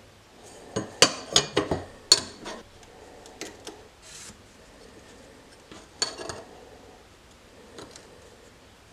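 Flat steel bar stock (15N20 and 1084 knife steel) clacking sharply a few times, about a second in, as the bars are handled and set against each other on the workbench, with another knock about six seconds in. Between the knocks a marker pen rubs and scratches across the steel as a cut line is drawn.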